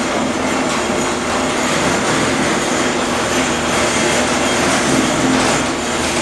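Electric garage door opener running as it lowers a sectional steel garage door: a steady mechanical rumble with a low hum as the door rolls down.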